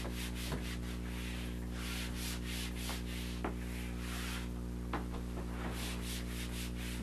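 Whiteboard eraser wiping across a whiteboard in quick back-and-forth strokes, several a second, with a short pause about two-thirds through. A steady low electrical hum runs underneath.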